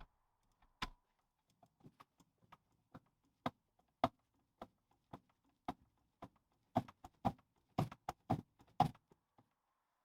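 A run of sharp taps and knocks on workshop parts during the rebuild of a Land Rover differential's seal holder. They come roughly twice a second, get heavier and closer together in the last few seconds, and stop about nine and a half seconds in.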